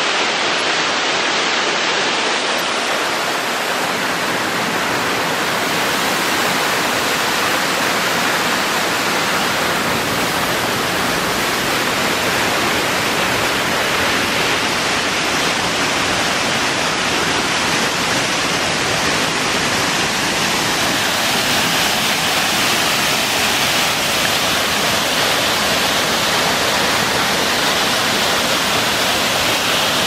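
Waterfall cascading down a rock face into a pool: a steady rush of falling water that grows fuller after the first few seconds.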